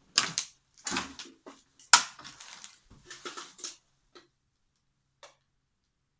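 Irregular crunches and knocks of people moving over a debris-strewn floor, the loudest about two seconds in. They thin to a couple of faint ticks after about four seconds.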